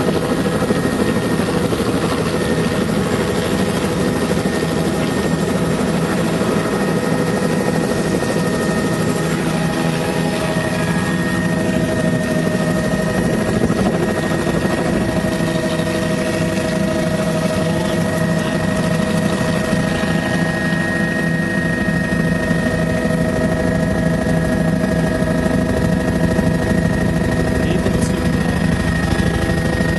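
Helicopter turbine engine and rotor heard from inside the cabin during lift-off and climb: a steady whine with several held tones over a rapid low rotor beat, which grows heavier about two-thirds of the way through.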